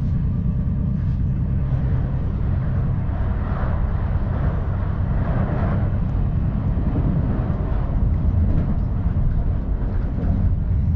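Steady low rumble and rushing of an ICE 1 high-speed train running at speed, heard inside the passenger car. The rushing swells louder in the middle as a freight train passes on the adjacent track.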